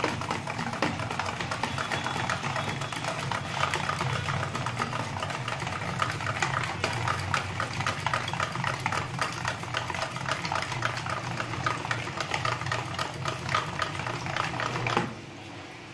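Wire balloon whisk beating a thick yogurt marinade in a plastic bowl: rapid, continuous clicking and sloshing as the wires strike the bowl, stopping abruptly near the end. A low steady hum runs underneath.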